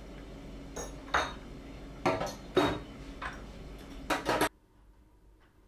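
Dishes and cutlery clinking and clattering as they are handled at a kitchen sink, in several knocks over a few seconds. The sound cuts off suddenly near the end.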